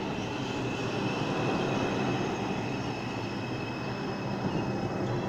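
R142 New York City subway train rolling along the platform: steady wheel-on-rail and running noise with a thin, steady high-pitched whine over it.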